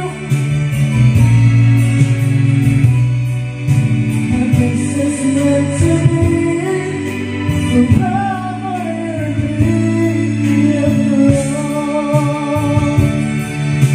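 A karaoke song playing through a karaoke player, with a voice singing the melody over the backing track.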